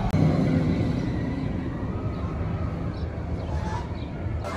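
Low, steady rumble of a vehicle engine running close by, loudest in the first second and easing off after.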